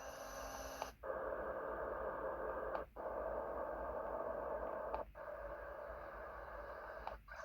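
FamiSym MBZ201 white noise machine's speaker playing steady hiss-like noise tracks. It is switched to the next sound three times, each change marked by a short break.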